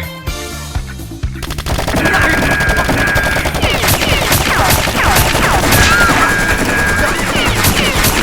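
Rapid automatic gunfire sound effects starting about one and a half seconds in, with whizzing, falling tones among the shots, over background music.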